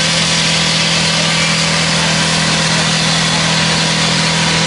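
Ford Thunderbird engine held at wide-open throttle, running flat out at a steady high pitch as it is deliberately run to destruction.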